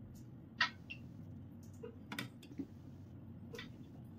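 A few faint, scattered clicks and taps of a steel ladle against a glass tumbler and a steel pot as thick pudding is ladled out, the sharpest about half a second and two seconds in.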